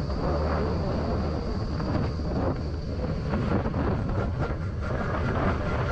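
Wind rushing over the microphone, mixed with a scooter's engine and tyre noise, while riding at about 45 km/h; a steady, even rumble throughout.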